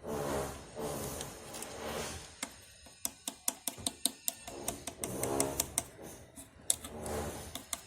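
Runs of sharp, quick clicks and taps, several a second, from small plastic toy kitchen pieces being handled, between swells of music.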